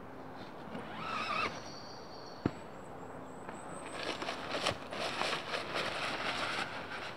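Rustling and crackling of leaf litter and tent nylon as the tent is worked on from its far side, thickest in the second half. There is a brief squeal about a second in and a single sharp tap midway.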